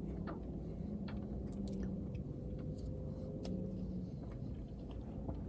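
A person chewing a mouthful of soft, cheesy mac and cheese, with small wet mouth clicks here and there, over a steady low background hum.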